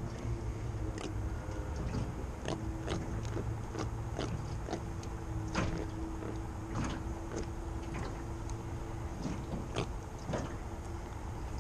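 Irregular light knocks and clicks from handling in a small aluminum boat, over a steady low rumble and a faint steady hum.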